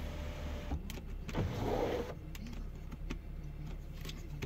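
Electric panoramic sunroof of a Mercedes-Benz ML 350 opening, its motor running with a quiet steady whir and a few faint clicks as the glass panel slides back.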